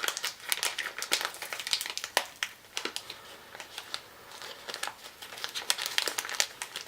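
A snack cake's wrapper crinkling and crackling in irregular bursts as it is handled and opened, easing off midway and then picking up again.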